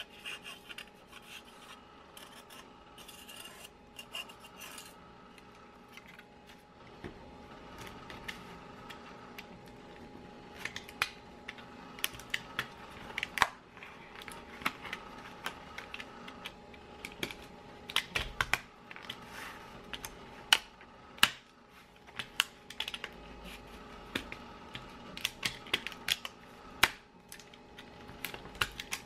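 Felt-tip marker scratching on foam board, then a snap-off utility knife cutting and scoring a corrugated plastic (coroplast) sheet, giving a long irregular string of sharp clicks and snaps, densest in the second half.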